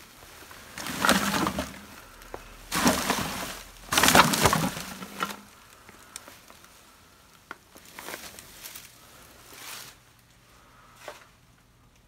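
Heaps of empty plastic soda bottles and trash crunching and clattering as they are pushed through and stepped on: three loud crunching bursts in the first five seconds, then fainter scattered crackling and rustling.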